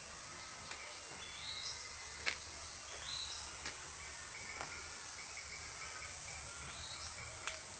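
Birds chirping: short high calls every second or two over a faint steady trill. Two sharp clicks stand out, the loudest about two seconds in.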